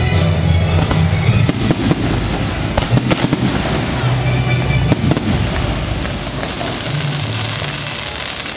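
Fireworks going off: sharp bangs, clustered about three and five seconds in, and crackling. Loud music with a strong bass plays underneath.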